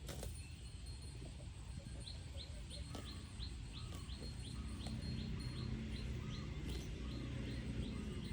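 A bird calling in a steady run of short, high, falling chirps, about three a second, over a low outdoor rumble that grows a little louder partway through.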